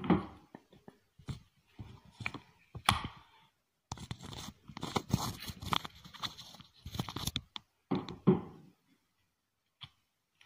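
Rubber cricket bat grip being forced over a grip-fitting cone and handle: irregular rubbing, scraping and knocks of rubber and wood, with the loudest knocks at the start, about three seconds in and near eight seconds. The grip is a tight fit.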